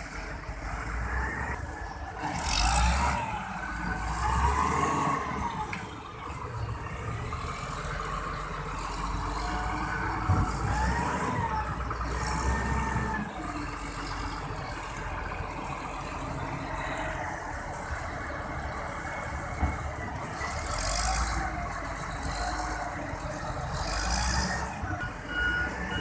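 Kobelco SK65 mini excavator at work: its diesel engine runs under a whine that rises and falls again and again as the hydraulics take load, with several short hisses. A travel alarm starts beeping near the end.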